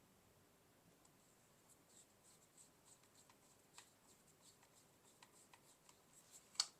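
Faint scratching and light clicks of a screwdriver starting small screws into the plastic housing of a Roomba i7 robot vacuum, with one sharper click near the end.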